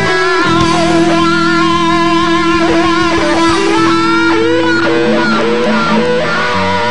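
Rock band playing an instrumental passage: electric guitar lead holding long notes, some with wavering vibrato, over bass guitar and drums.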